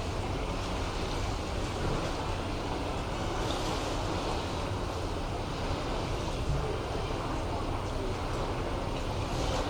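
Steady outdoor ambience recorded with binaural microphones: a constant wash of noise with a low rumble beneath, in the character of sea surf and wind, with no single event standing out.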